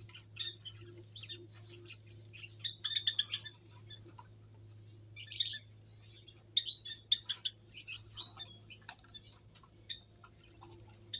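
Small aviary birds chirping in quick, high, short notes that come in bursts, with a faint steady hum underneath.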